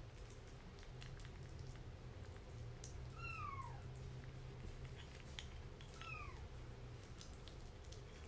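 A kitten mews twice, about three seconds in and again about six seconds in, each a short call falling in pitch, over faint clicks and smacks of a kitten eating wet food from a small dish.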